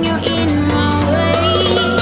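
Background music with a steady beat and a gliding melody.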